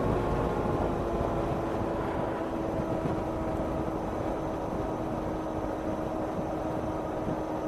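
Steady engine and road noise from a vehicle being driven at a constant speed, with a faint steady hum under it.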